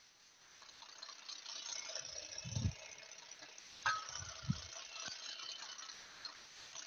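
Stand mixer with a whisk attachment running and whisking the egg mixture, a light steady rattle. It is broken by two dull knocks and a sharp click as the bowl is handled.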